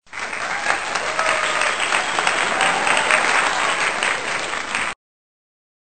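Crowd applauding: dense clapping that cuts off abruptly about five seconds in.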